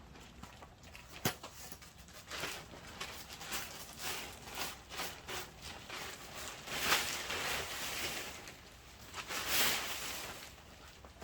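Rustling and crackling of plastic as greenhouse vinyl film and tape are handled to patch a tear. There is a sharp click about a second in, and two longer scratchy sounds about seven and nine and a half seconds in.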